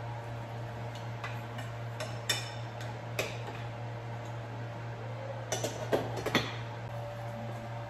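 Metal spoon and pot lid clinking against a small saucepan while sweet peas are stirred: a few sharp, ringing clinks, then a quick cluster of clanks about two-thirds through as the lid goes back on.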